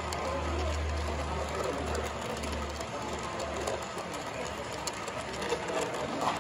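HO scale model passenger train rolling past on the track: a steady mechanical whirr of the cars' wheels on the rails with faint scattered clicks, over a low hum that drops away about two and a half seconds in.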